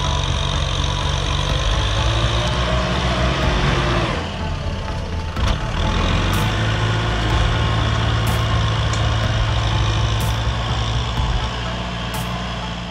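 Kubota M6040 tractor's four-cylinder diesel engine running steadily under load while its front dozer blade pushes soil. The engine sound dips and shifts briefly about four seconds in, then carries on steady.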